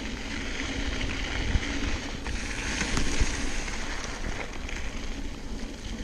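Wind rushing over the microphone and mountain bike tyres rolling over a dirt trail, a steady noisy rumble with a few short knocks from the bike.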